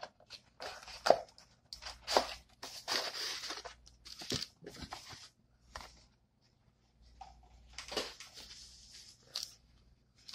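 Hands opening cardboard toy packaging and handling a figure's white packing wrap: scattered short tearing, crinkling and knocking noises, with a brief quiet pause a little past the middle.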